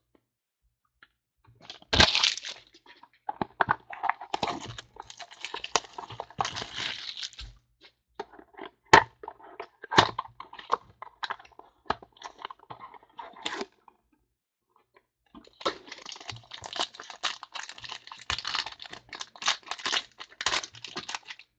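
Trading-card pack wrapper being torn open and crinkled. Between two stretches of crinkling comes a run of sharp clicks and taps as the cards are handled.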